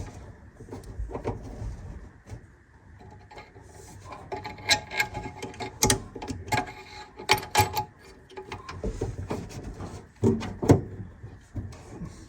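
Irregular clicks, knocks and light metallic clinks of hand work on a shifter cable and its fittings, busiest in the middle, some clinks ringing briefly.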